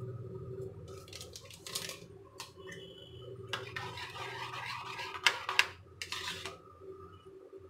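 Metal spoon stirring thick curd raita in a plate, scraping against it in short strokes that come in bursts of a second or so.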